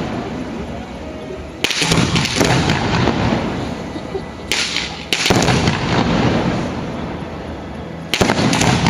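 Aerial firework shells bursting: four sudden bangs, each followed by a rush of noise that fades over a second or two.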